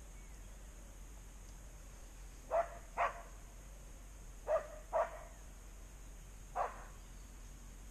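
A dog barking: five short barks, two quick pairs followed by a single bark.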